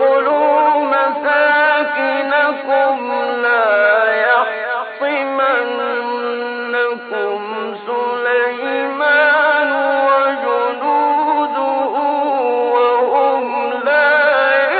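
A man's voice reciting the Quran in a slow, melodic chanted style, with long held notes that bend and waver in pitch.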